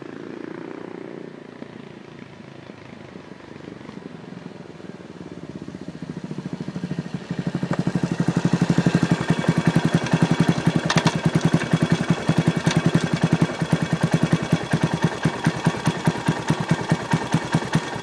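1982 Yamaha SR500's single-cylinder four-stroke engine through a short megaphone exhaust, growing louder over several seconds as the motorcycle rides up. Then it settles into a loud idle of even, separate exhaust pulses, a sound the owner still finds too loud despite new sound-deadening wrap in the baffle.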